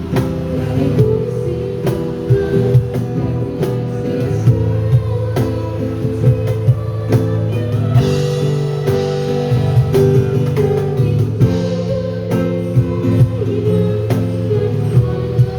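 Live band music: guitar with a drum kit keeping a steady beat of sharp hits.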